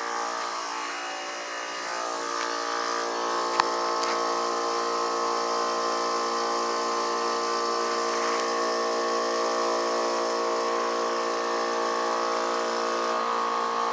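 Central air conditioner condensing unit running: a steady hum of compressor and condenser fan made of several even tones, with one sharp click about three and a half seconds in.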